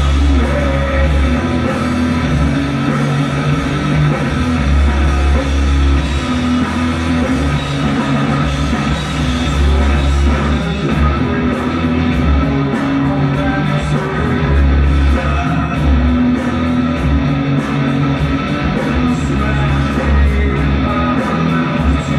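Rock band playing live: electric guitars over a drum kit, with low bass notes that move every second or two.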